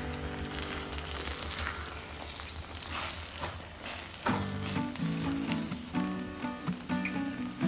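Risotto sizzling in a frying pan while it is stirred with a slotted spoon, the spoon scraping through the rice. Background music with plucked notes comes in about four seconds in.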